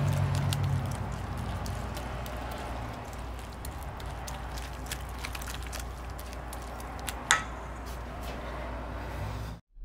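Wire whisk stirring a thick creamy dressing in a stainless steel bowl: a steady wet squishing with many light clicks of the wires against the metal, and one sharper clink about seven seconds in. The sound cuts off suddenly just before the end.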